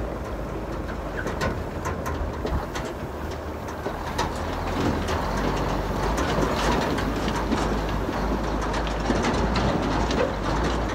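Shallow river water running over stones, a steady rushing with small trickling clicks, under a low gusting rumble of wind on the microphone.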